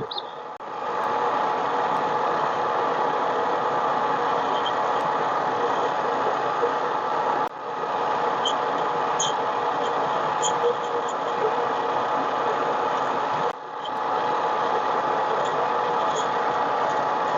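Harbor Freight mini lathe running steadily under power while turning a Delrin blank, a constant motor whine with a steady pitch. The level drops briefly twice, near the middle and about three quarters through.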